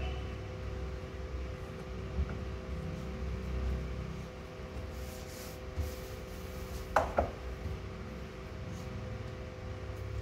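Kitchenware handled on a counter over a steady low hum, with two quick knocks close together about seven seconds in.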